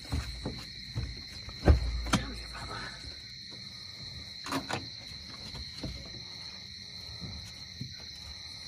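Steady high chirring drone of night insects, with a few knocks and thumps on the boat as a catfish is brought aboard, the loudest and deepest about two seconds in.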